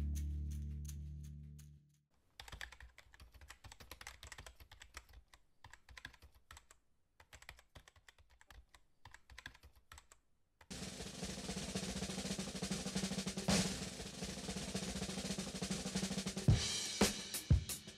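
A music sting fades out, then light, irregular clicking like typing on a keyboard. About ten seconds in, fuller background music starts, with sharp drum hits coming in near the end.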